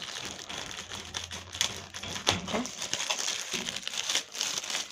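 Plastic courier mailer crinkling and rustling as hands pull it open and slide a cardboard box out of it, with a few sharp crackles.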